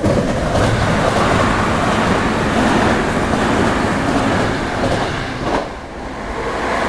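Train passing at close range over a level crossing, a loud, steady rumble of wheels on the rails that drops off sharply about six seconds in.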